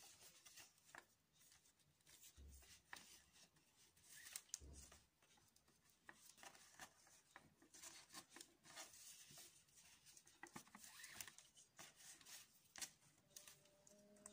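Faint rustling and rubbing of macrame cord with small clicks as it is handled and pulled tight into hitch knots.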